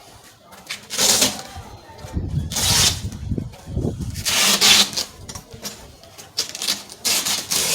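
Rustling and handling noises in four loud bursts as the softbox umbrella's fabric layers are pulled off and packed into a box.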